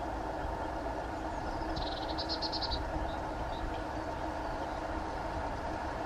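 Steady low outdoor background hum, with one short, high, rapidly pulsed trill about two seconds in.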